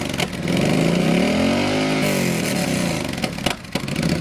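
Yamaha XVS 1300's V-twin engine, breathing through an aftermarket 2-into-1 exhaust, revved with one throttle blip: the revs climb and fall back over about three seconds, then settle toward idle near the end.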